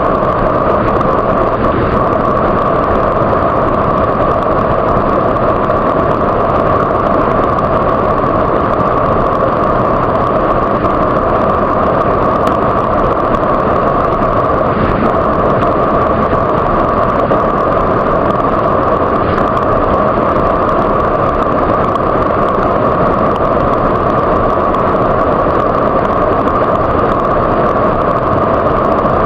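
Waterfall: water falling and rushing in a loud, steady, unbroken roar, with no change throughout.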